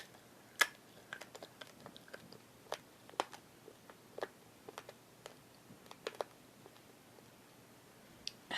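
Raw, uncooked spaghetti crunching as it is chewed: faint, irregular sharp cracks that die out a little over six seconds in.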